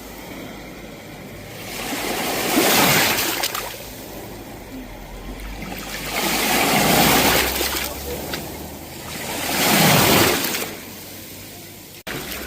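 Sea waves breaking and washing up the shore: three swelling rushes of surf a few seconds apart, each building and then falling away.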